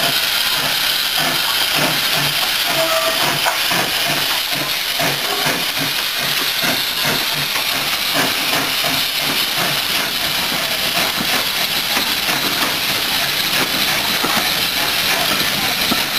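SE&CR C Class steam locomotive working slowly with its train, hissing steam throughout over a steady beat of exhaust chuffs.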